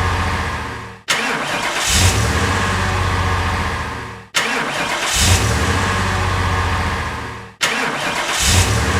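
A car engine sound effect: an engine starts with a brief surge and then runs steadily. The same short clip repeats about every three and a quarter seconds, each time cutting in abruptly and fading out.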